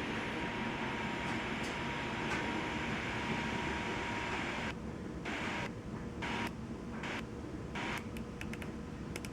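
Static hiss from a Sangean PR-D15 AM/FM radio receiver tuned between stations. About halfway through the hiss turns choppy, cutting in and out as the tuning moves.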